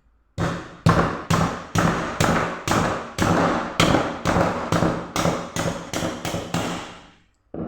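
A piston being knocked down into the cylinder bore through a homemade ring compressor: about fifteen even knocks, roughly two a second, each with a short ring. The compressor holds the piston rings closed so the piston slides into the bore with ease.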